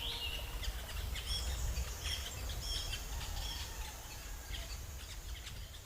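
Several small birds chirping in short, high calls over a low steady rumble of outdoor ambience, fading out near the end.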